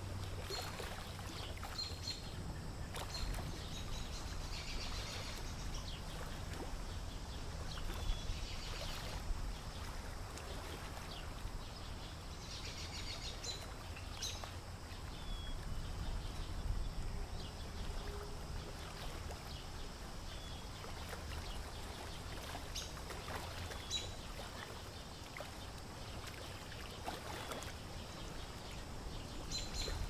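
Common moorhen chicks giving short, high peeps every few seconds, sometimes in quick little runs, over a steady low rumble.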